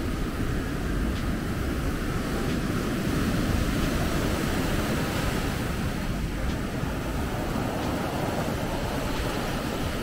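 Pacific surf washing onto a sandy beach: a steady rush that swells a little a few seconds in.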